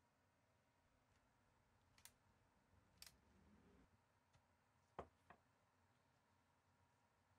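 Near silence: faint room tone with a few faint clicks.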